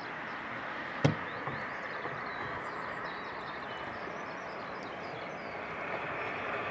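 Steady rolling noise of a train on the line, with birds chirping over it and a single sharp knock about a second in.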